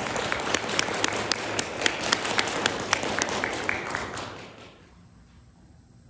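Audience applauding, with one person's claps close by standing out sharply at about four a second. The applause dies away about four and a half seconds in.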